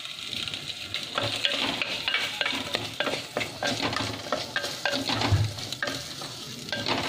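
Chopped onion, green chilli and potato sizzling in a clay pot, stirred with a wooden spoon that scrapes against the pot. The stirring starts about a second in, over the steady sizzle.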